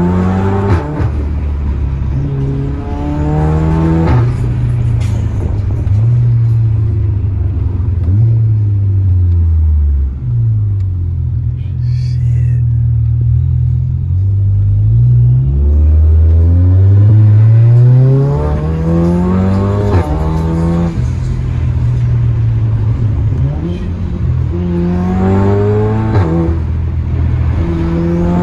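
Hybrid-turbo VW Golf R Mk7's 2.0-litre turbocharged four-cylinder heard from inside the cabin, accelerating hard several times, its pitch climbing through each gear and dropping back at the shifts. Music from the car stereo plays underneath.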